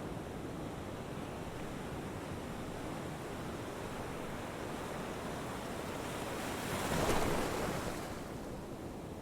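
A steady rushing noise that swells briefly about seven seconds in and then falls away again.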